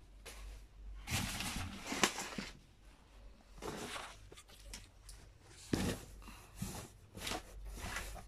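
A terry towel rustling as it is handled and laid into a cardboard box: irregular bursts of rustling, with a couple of soft knocks against the box.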